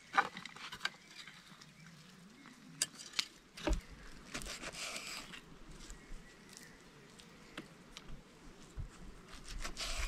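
Kitchen knife slicing a grilled ribeye steak on a wooden log, with scattered sharp clicks and knocks from the blade and handling.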